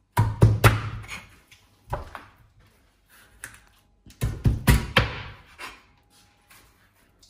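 Chef's knife slicing through a skinned raw fish fillet and knocking on the cutting board, in three bouts of sharp knocks: one at the start, a short one about two seconds in, and a longer one about four seconds in.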